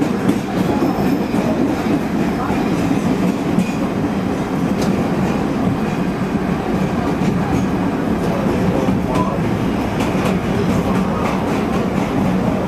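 Inside a PATH PA-5 subway car running between stations: steady loud train noise from wheels and running gear, with scattered clicks of the wheels passing over rail joints.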